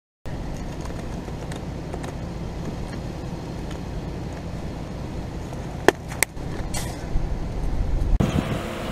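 Two sharp clicks of a spice shaker bottle's cap about six seconds in, over a steady low rumble.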